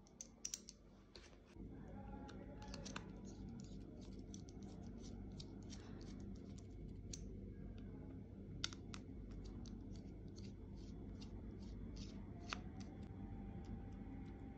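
Light clicks and scrapes of a precision screwdriver: a bit being fitted into the handle, then its tip turning tiny screws in a phone's midframe, with a quick run of clicks in the second half. A steady low hum runs underneath.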